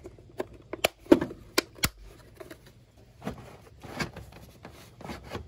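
Plastic air-filter box being handled and snapped back together: sharp clicks and knocks in the first two seconds, then plastic scraping and rustling as the box is pushed back into place.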